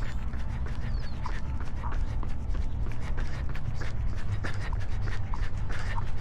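A runner breathing hard in quick, rhythmic pants, with footfalls and wind rumbling on the microphone.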